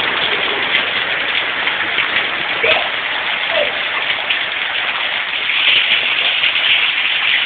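Hail and heavy rain pelting down steadily, a dense patter of countless small hits that grows a little louder near the end.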